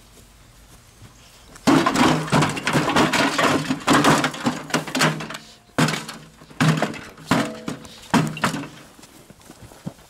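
Blows striking a smashed microwave oven's casing, with loud shouting and grunting as people scuffle; sharp bangs about two seconds in and again several times in the second half.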